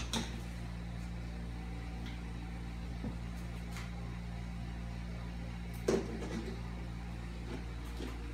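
Steady low hum with a few light knocks, the loudest about six seconds in.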